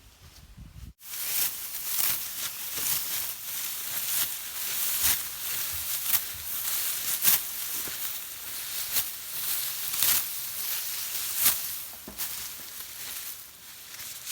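Dry rice stalks rustling and crackling as they are handled, a steady hiss broken by many sharp crackles that starts abruptly about a second in.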